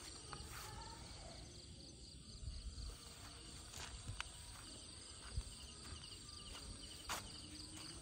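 Crickets chirping in a steady, rapid high-pitched trill, faint, with a few sharp clicks and knocks scattered through.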